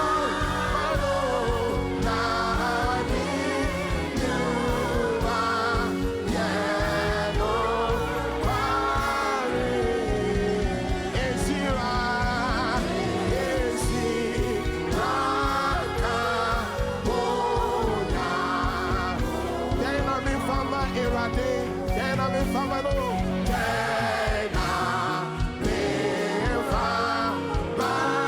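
Gospel worship singing: wavering, held sung lines over a sustained low instrumental accompaniment, with a choir-like sound.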